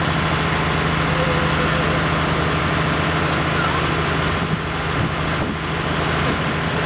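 Engine running steadily with a strong low hum, as from the power unit or fire engine that drives hydraulic rescue tools during a car extrication.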